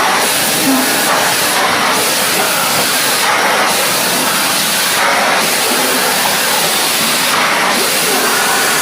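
Kärcher WD 5 wet and dry vacuum cleaner running steadily while sucking up spilled water from the floor, its rushing noise shifting slightly every second and a half or two.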